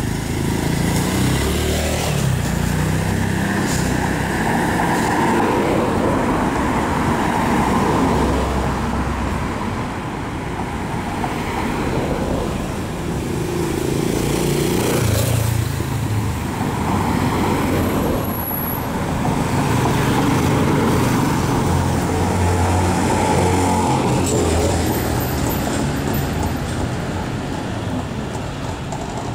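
Street traffic: cars, vans and motor scooters passing with engines running, the hum swelling and fading as vehicles come and go.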